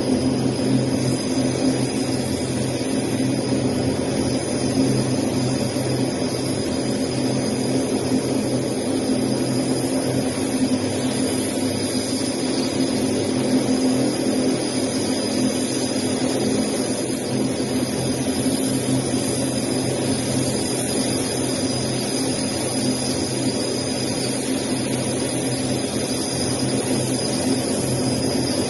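Lockheed C-130 Hercules turboprop engines running steadily: an even propeller drone with a thin high whine above it, holding the same pitch throughout.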